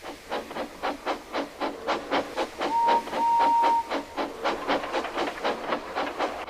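Steam locomotive chuffing at about four puffs a second, with a short whistle toot followed by a longer whistle blast about three seconds in.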